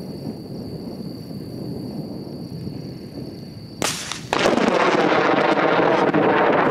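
Close lightning strike: a sharp snap about four seconds in, followed almost at once by loud thunder that keeps rolling.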